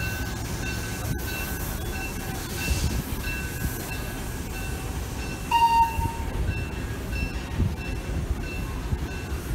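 Slow-moving freight train on the track, with a steady low rumble from its cars and wheels and faint high tones that repeat about twice a second. About five and a half seconds in comes a brief, louder shrill squeal.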